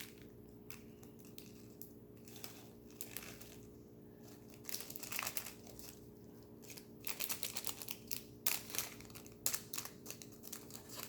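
Small plastic packet of sprinkles crinkling as the sprinkles are shaken out of it, in irregular bursts of crackling and ticks that get busier from about halfway on.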